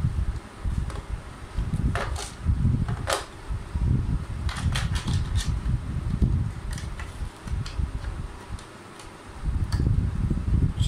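Sharp plastic clicks and taps as the underside of a toy car is handled, a cluster of them about two to five seconds in and a few fainter ones later, over a steady low rumble.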